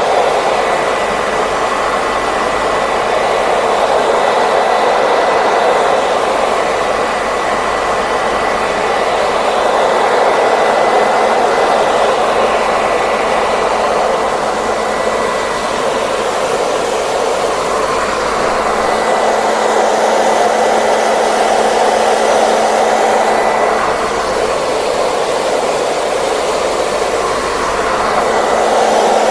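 Hairdryer blowing steadily, a continuous airy rush with a faint whine, its loudness slowly rising and falling a little.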